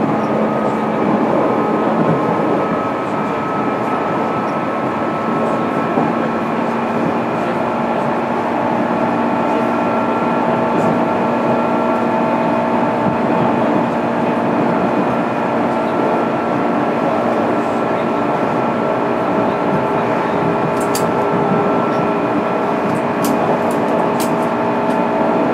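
Interior running sound of a JR East 205-series EMU motor car (MoHa 205-612) under way: steady whine from the DC traction motors and gears over rumbling wheel and rail noise, the pitch holding nearly level at a steady speed. A few sharp clicks come near the end.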